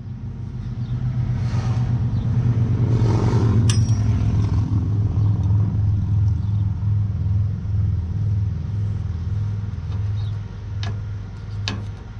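An engine running at a steady speed with a pulsing low hum, with a few sharp metallic clicks, two of them near the end.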